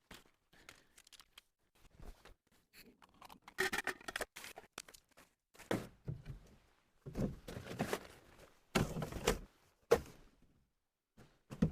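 Camping gear being handled and packed away: irregular knocks, thunks and scrapes, with the louder ones in the middle and latter part.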